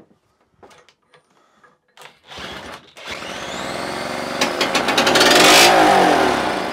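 A cordless drill spins a 1966 British Seagull two-stroke outboard over by its flywheel, rising in pitch from about two seconds in. The engine catches and fires rapidly on fuel primed straight into the cylinder, then winds down near the end.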